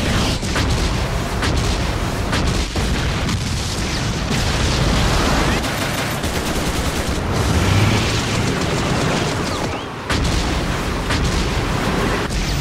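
Animated combat sound effects from a tank-versus-attack-helicopter fight: continuous rapid gunfire with booms over a dense rumble. About ten seconds in it drops away for a moment, then resumes.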